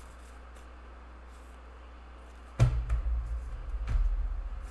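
Faint low hum, then about two and a half seconds in a sudden dull thump followed by a low rumble and a second knock about a second later: handling knocks on the desk as a deck of tarot cards is handled and set down.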